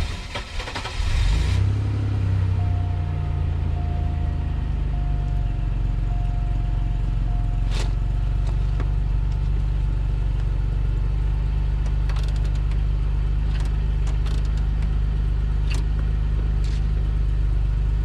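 A 2001 Buick LeSabre's 3.8-litre V6 starting, catching about a second in, then idling steadily. A steady high tone sounds for about five seconds after it starts, and several sharp clicks come in the second half.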